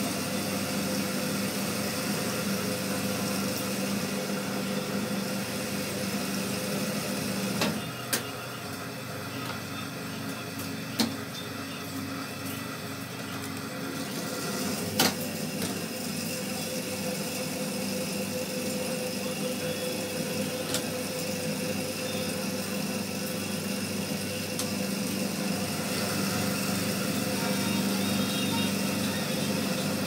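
Electric motor of a ceiling-fan coil winding machine running with a steady hum; its low hum drops away about eight seconds in and comes back near the end. A few sharp clicks and knocks stand out over it.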